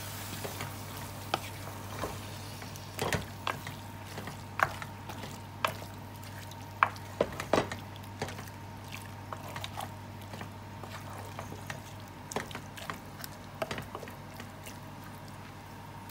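A spoon stirring and turning raw chicken pieces through spiced onions in a metal pan, with irregular clicks and knocks as it hits the pan. A steady low hum runs underneath.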